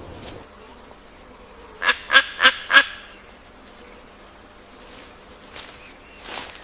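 A bird calling four times in quick succession, short loud notes about three a second, over soft forest ambience.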